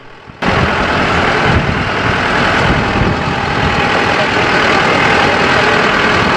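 Open safari canter on the move: its engine runs steadily under loud road and wind noise. The sound starts abruptly about half a second in.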